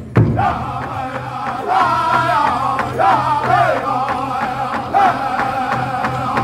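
Powwow drum group singing a chicken dance song, high-pitched voices over a big drum struck by several drummers together. Sharp accented drum beats come near the start and again about five seconds in.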